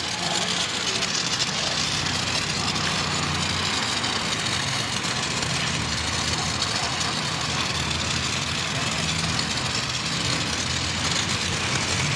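Pressure washer running steadily, its water jet spraying with a constant hiss over the low hum of its motor and pump.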